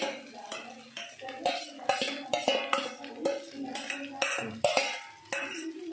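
Metal spoon scraping and knocking against a stainless steel vessel as cooked rice is scooped out into a pan: a quick, irregular run of clinks and scrapes, about two or three a second.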